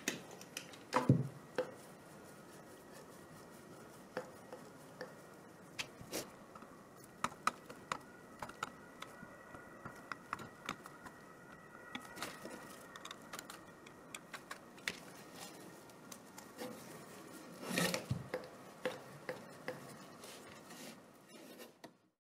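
Gloved hands handling a small air compressor unit: scattered clicks, taps and rubbing of its plastic and metal parts against each other and the table. There are louder clusters of knocks about a second in and again near the end.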